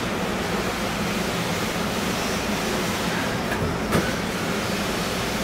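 Steady hum and hiss of the MIA Mover automated people-mover train standing at a station with its doors open, with one short click about four seconds in.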